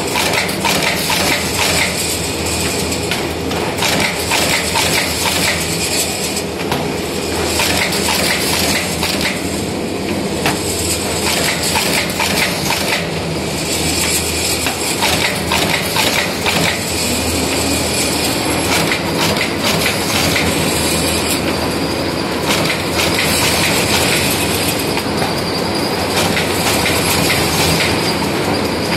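Automatic programmable copy stitching and folding machine running, its wire-stitching head clattering rapidly as notebooks pass under it, over a steady machine hum.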